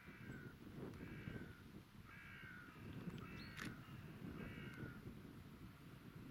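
A bird calling repeatedly: about five short calls, each falling slightly in pitch, over a low rumble. A single sharp click sounds a little past halfway.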